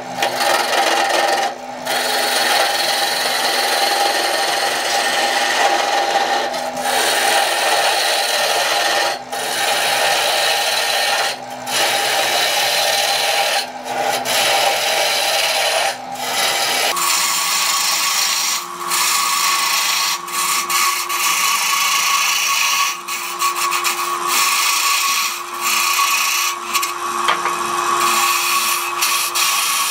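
A wood lathe spins a blank of areca palm root while a turning gouge cuts into it, giving a steady scraping hiss over the hum of the lathe, with short breaks every couple of seconds. The lathe's hum shifts higher a little over halfway through.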